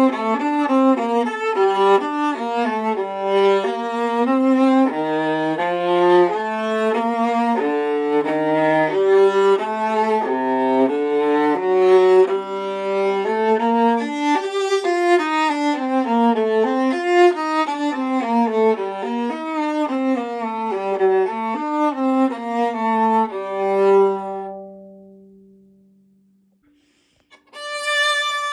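Vintage c1960 European 15.75-inch viola played solo with the bow: a flowing melody of quickly changing notes moving up and down its range. It ends on a long held low note that dies away, and after a short pause the playing starts again near the end.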